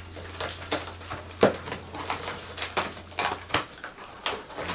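Box cutter slitting the packing tape on a cardboard box, with the cardboard flaps scraping as they are pulled open: a run of short, irregular scratchy strokes over a steady low hum.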